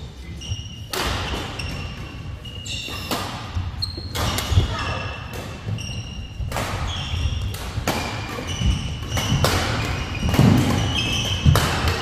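Badminton rally: rackets striking the shuttlecock roughly once a second, sharp echoing cracks, with short squeaks of shoes on the court floor between the hits.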